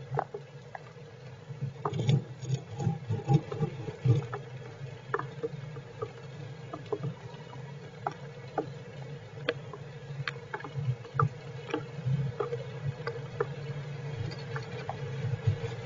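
Heavy rain falling on the squirrels' shelter: irregular drips and pattering ticks over a steady low hum, with a flurry of louder knocks and rustling about two to four seconds in.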